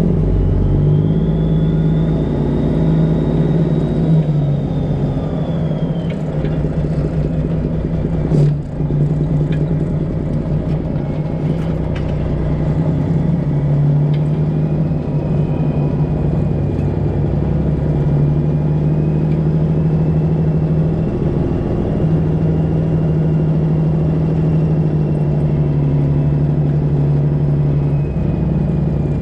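Semi truck's diesel engine running steadily at low speed, with a faint whine that rises and falls in pitch. One sharp knock about eight seconds in.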